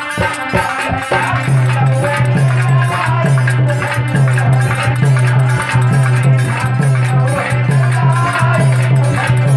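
A man singing a devotional song through a microphone and PA, over a steady low drone and a quick, even rattling percussion beat.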